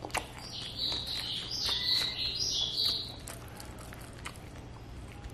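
Close-up eating sounds: fingers scraping and pressing rice together on baking paper, with small clicks and crackles. From about half a second to three seconds in, a run of short, high squeaky sounds.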